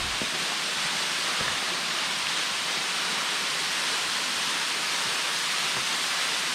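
A waterfall in full flood after days of heavy rain, its water pouring over and crashing below in a steady, unbroken rush with most of its sound in the upper range.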